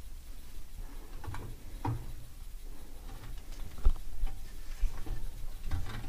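Light scratching, rustling and small knocks of hands handling a removed crankshaft vibration dampener, with one sharper knock about four seconds in.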